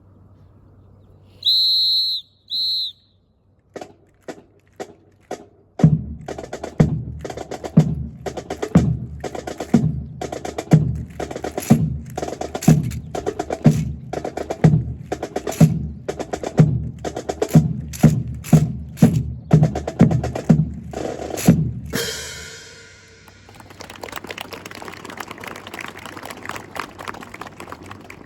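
Two shrill whistle blasts, a long one then a short one, then a few sharp clicks. Marching percussion follows, drum strokes with a deep bass drum beating a steady rhythm of about two hits a second for roughly sixteen seconds, and the drumming gives way to several seconds of even noise.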